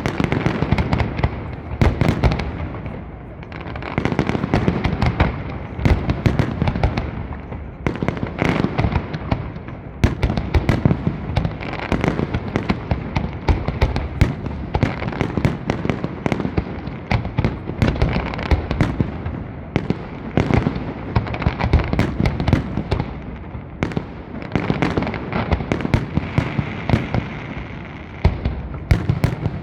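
Aerial fireworks display: a dense, continuous barrage of shell bursts and sharp cracking bangs, many each second, easing briefly a couple of times before building again.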